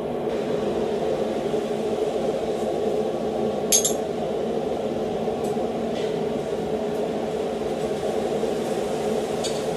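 A steady drone runs through a metalworking shop, with a few light metallic clinks and one sharper clink a little under four seconds in, as small steel pieces and tools are handled at the anvil.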